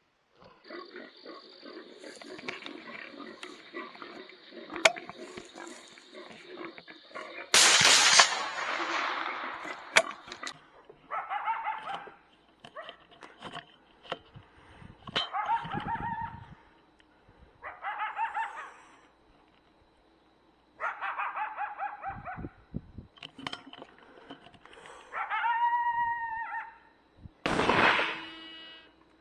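Feral hog squealing repeatedly: about six drawn-out cries a few seconds apart, each bending in pitch. Two loud sudden noises break in, about seven seconds in and near the end.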